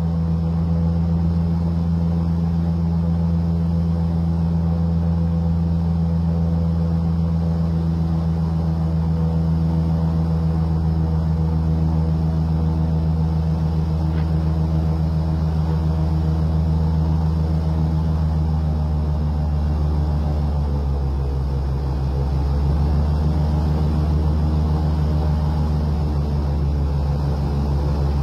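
Airboat's engine and air propeller running at a steady cruising speed, a loud continuous drone. About two-thirds of the way through, its pitch dips briefly and then climbs again as the throttle eases and opens.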